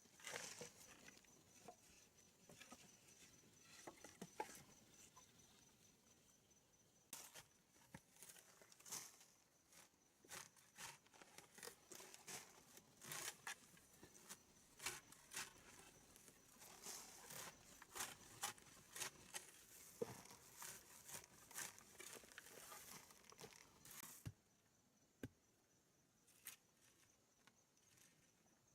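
Faint rustling and scattered short clicks, thickest through the middle and thinning out near the end, over a steady high insect trill.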